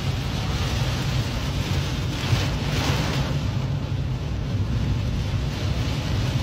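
Severe storm wind and driving rain battering a car, heard from inside the cabin: a steady rushing noise with a deep rumble underneath. A gust swells briefly about two to three seconds in.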